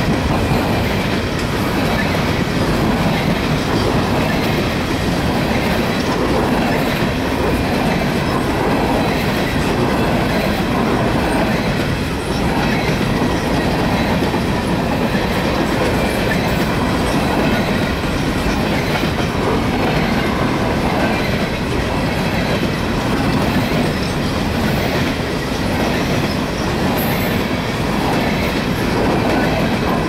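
Empty coal cars of a long freight train rolling steadily past close by, their steel wheels clattering on the rail.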